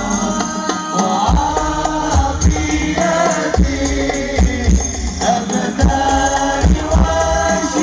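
Hadroh sholawat music, chanting voices over frame drums with regular deep bass thumps, played back loud through a large PA sound system with banks of subwoofers for a sound check.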